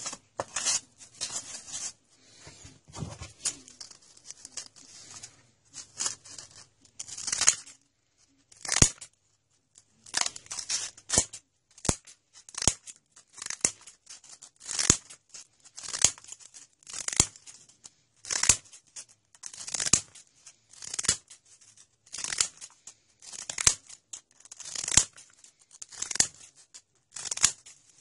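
Scissors cutting strips off folded sandpaper, a short gritty snip about once a second, each cut drawing the blade edges across the abrasive to sharpen them. For the first several seconds, irregular rustling and crinkling of the sandpaper being handled and folded.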